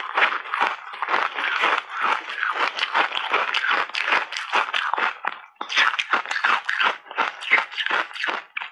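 Close-miked chewing of ice chips coated in matcha and milk powder: crackling, crunching bites one on top of another, with a brief pause a little past halfway.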